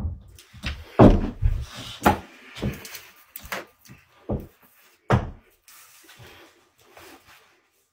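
A run of irregular thumps and knocks with rustling between them, the loudest about a second in and again about five seconds in.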